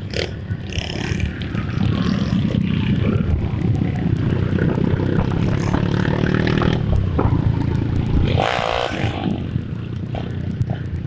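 Several motorcycle engines running with a deep, steady low rumble. A short wavering high-pitched sound cuts in about eight and a half seconds in.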